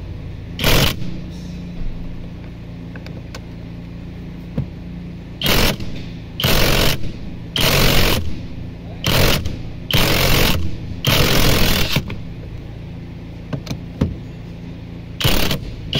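Impact wrench hammering in about eight short bursts of a second or less, working on a very tight steering-wheel centre bolt that is slow to break loose.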